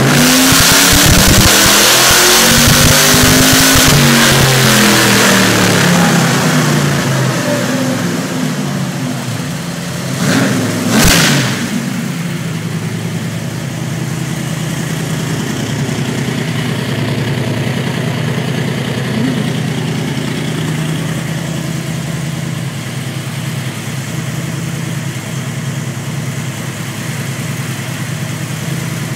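Ford Ranger race truck's 347 small-block Ford V8 on a chassis dyno: it runs hard and loud for the first several seconds, then the revs wind down. About ten seconds in come two short throttle blips, the second with a sharp crack. After that it settles to a steady idle.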